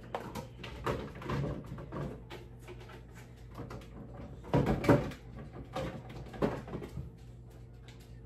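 Kitchen cupboard doors and stored containers knocking and clattering while someone rummages for a lidded storage container. The louder knocks come about halfway through, over a faint steady hum.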